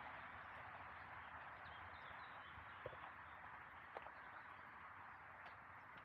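Quiet woodland ambience: a steady faint hush, with a short bird call about two seconds in and a few soft footsteps on the forest path.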